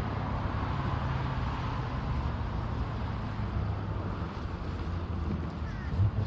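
Steady road noise of a moving car: a low engine and tyre hum with an even rush, and one brief bump near the end.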